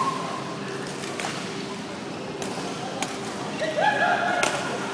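Badminton rackets striking a shuttlecock: a few sharp, separate hits with the loudest near the end, in an echoing sports hall. A brief squeal comes just before the loudest hit.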